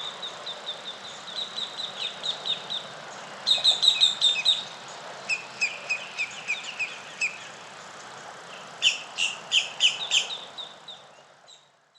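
Small birds chirping in quick runs of short, high notes, a few of the runs louder and closer, over a steady outdoor hiss; the sound fades out near the end.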